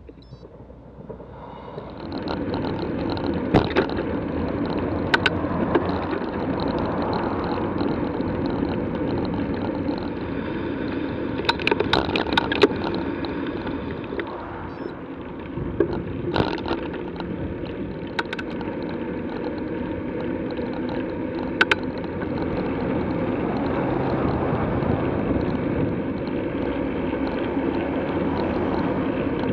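Steady road and wind noise from a bicycle-mounted camera while riding, with a few sharp clicks and knocks scattered through it.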